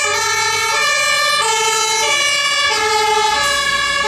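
Two-tone sirens of German fire engines responding, each stepping back and forth between a high and a low note about every two-thirds of a second. Sirens from more than one truck overlap out of step with each other.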